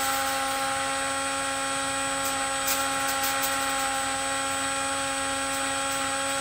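Small ducted fan driven by a 2300 KV brushless motor on a 3S battery, running steadily at part throttle: an even, high whine made of several tones.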